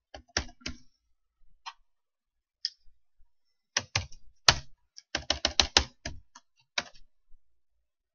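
Keystrokes on a computer keyboard typing a spreadsheet formula: a few scattered key clicks at first, then a quick run of keystrokes from about four to six seconds in.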